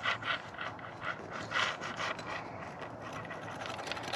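Repeated rubbing and scraping strokes against a surface by hand, one or two a second, unevenly spaced.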